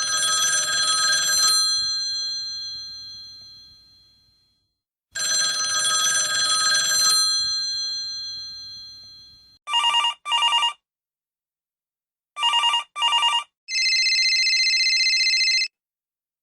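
Telephone ringing: a bell-type ringer sounds twice, each ring about two seconds long and dying away slowly afterwards. Then an electronic ringer gives two pairs of short double rings, followed by a steady warbling electronic tone about two seconds long.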